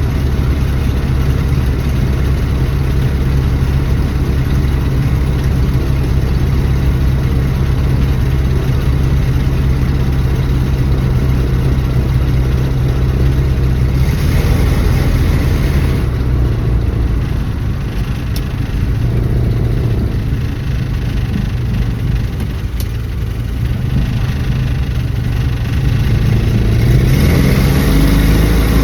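1974 Dodge Dart engine running steadily with a deep hum. About halfway through the sound shifts and eases off, and near the end the engine note rises as it revs up.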